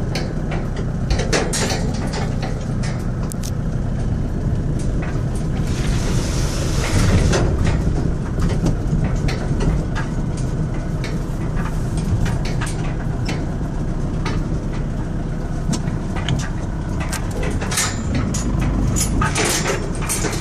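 Car rolling slowly over a broken, potholed road surface with puddles and loose gravel, heard from inside the cabin: a steady engine and road rumble with frequent knocks and rattles as the wheels drop into the holes, and a spell of tyre hiss about six seconds in.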